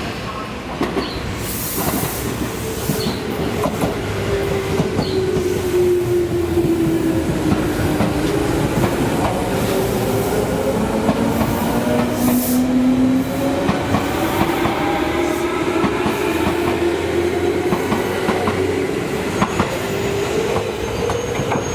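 Tobu 10030-series electric train pulling out of the station and picking up speed, wheels clacking over rail joints. A motor whine glides down in pitch and then rises again.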